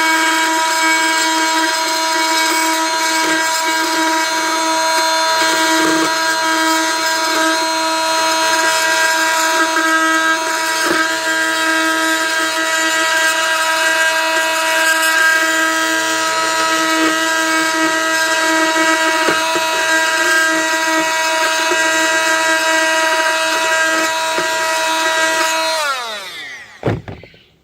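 Small electric power saw used as a grinder, running at a steady high-pitched whine as it grinds the plastic jar-lock knobs off a poultry feeder base. Near the end it is switched off and winds down, its pitch falling, to a stop.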